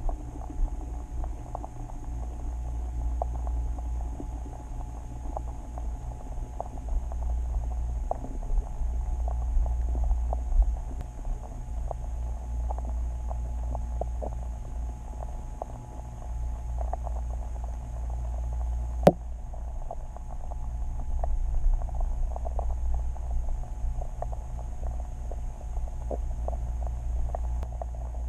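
Underwater sound picked up by a submerged camera in a lake: a steady low rumble with many small scattered clicks and ticks, and one sharper click about 19 seconds in.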